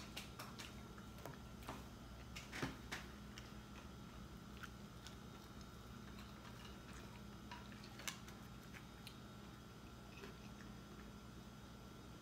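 Quiet eating of a shrimp po' boy: scattered soft clicks and crunches of biting into the bread roll and chewing, most of them in the first three seconds. A faint steady hum runs underneath.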